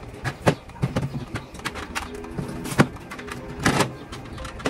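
Plastic containers and food packages knocking and clattering as they are set onto refrigerator shelves and door racks, a string of sharp clacks, several in the first second and more about three and four seconds in.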